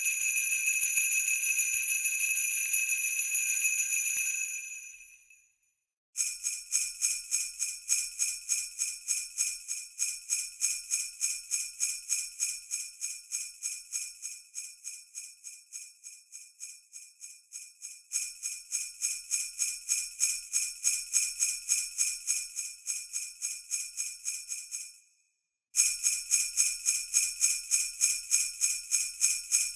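Sleigh bells jingling. A continuous shake fades out about five seconds in; after a short silence they ring in a steady rhythm of about two shakes a second, growing louder partway through, stopping briefly near the end and starting again louder.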